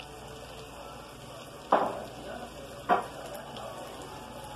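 Plantain slices frying in butter in a pan, a steady sizzle, broken twice by a sharp knock about a second apart near the middle.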